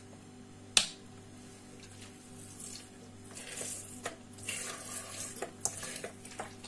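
A sharp click, then lemon vinegar poured in uneven spurts from a plastic bottle into a plastic mixing bowl of chermoula.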